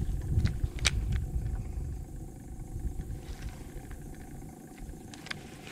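Low rumble of wind buffeting the microphone, stronger in the first couple of seconds and then easing off, with a few sharp clicks over it.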